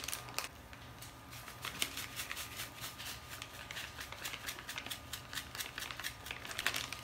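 Small foil packet of grated Parmesan crinkling as the cheese is shaken out of it into a pot: a rapid, irregular ticking and crackling.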